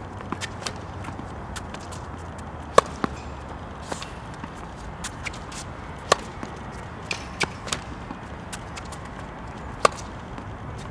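Tennis racket striking the ball: three sharp hits a few seconds apart, with lighter knocks and taps between them from ball bounces and footsteps on the court.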